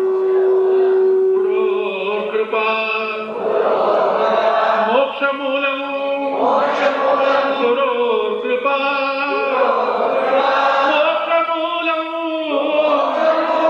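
Devotional chanting, with voices holding long, sliding notes.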